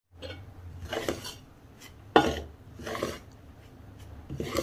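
A metal spoon stirring flour and sponge starter in a ceramic mixing bowl, scraping and clinking against the bowl in strokes about a second apart, the loudest a sharp clink a little past two seconds in.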